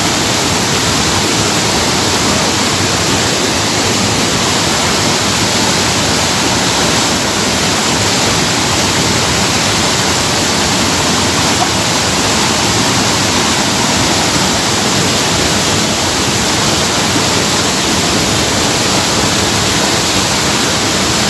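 Waterfall pouring down over rocks close by: a steady, loud, even rush of falling water.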